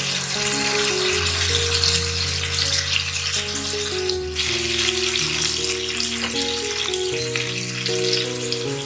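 Mutton seekh kebabs sizzling on a hot grill pan, a steady crackle of fat frying, with background music over it.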